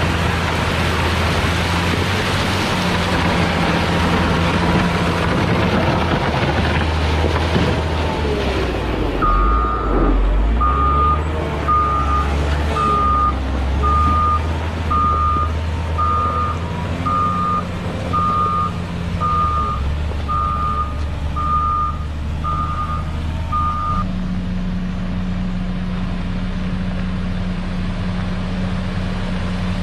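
Caterpillar 120 motor grader's diesel engine running while its blade pushes crushed-stone aggregate, with a loud rushing crunch of gravel. About nine seconds in, its reversing alarm begins beeping about once a second and stops some fourteen seconds later, leaving the engine running on a steady note.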